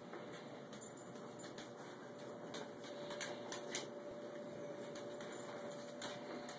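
Quiet room with a faint steady hum and scattered soft clicks and ticks, a few louder ones about three to four seconds in.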